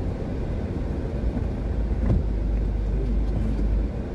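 Steady low rumble of a car on the move, heard from inside the closed cabin: engine and road noise.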